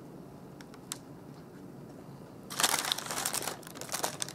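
Clear plastic film wrapper crinkling as the burrito is handled inside it. There are a few faint ticks first, then a burst of crackling about two and a half seconds in that trails off into scattered crackles.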